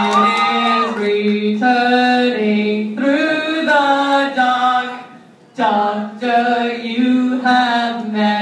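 Voices singing unaccompanied into a hall, in long held notes over a steady low pitch, breaking off briefly about five seconds in before starting again.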